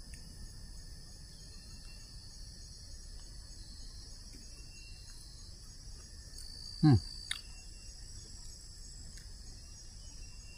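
Steady high buzzing drone of forest insects, with faint short chirps over it. About seven seconds in comes one brief, loud sound that slides quickly down in pitch.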